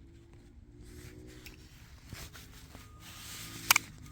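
Plastic rubbing and handling noises as the safety clip is worked off a bear spray canister, with a sharp double click near the end.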